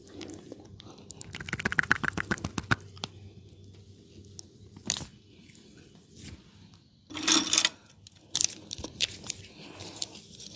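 Hands-on barber massage: a quick run of sharp taps about a second in, then scattered clicks, and a louder short burst of noise about seven seconds in.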